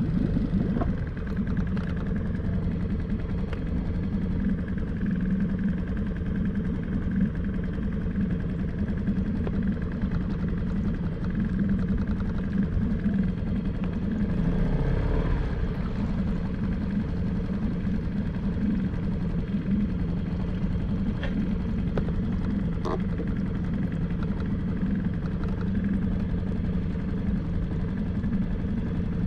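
Small outboard motor on an inflatable fishing boat running steadily at low speed.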